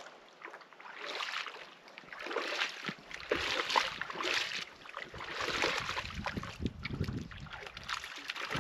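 Small wind-driven waves lapping against the shoreline rocks, a hiss that swells and falls roughly once a second, with wind rumbling on the microphone from about three seconds in.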